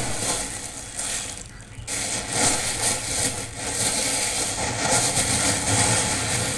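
A steady, noisy mechanical rumble like a running motor, played as a sound clip through a speaker. It starts abruptly as the previous bird-call clip cuts off.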